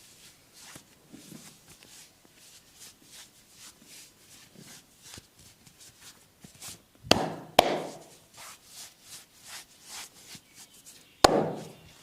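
Hands massaging bare skin: a steady run of soft pats and rubs, broken by three sharp slaps, two close together about seven seconds in and one near the end.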